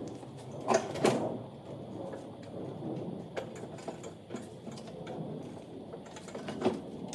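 Scattered knocks and rattles of hands working on a mower deck, routing its drive belt around the pulleys, with two sharper knocks about a second in.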